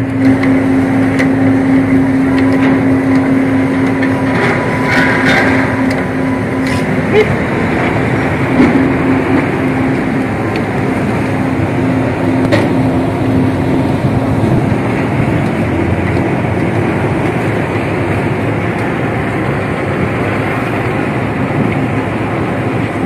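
A vehicle engine running steadily, with a few sharp knocks over it.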